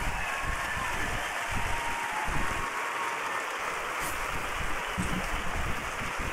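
Studio audience applauding steadily at the end of a performance.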